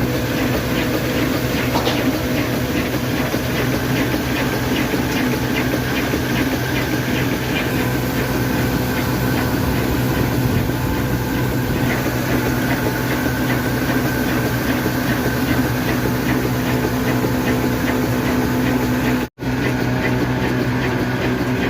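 Heavy old black diesel engine running steadily at a constant speed, with a light ticking about twice a second through the first half. The sound drops out for an instant near the end.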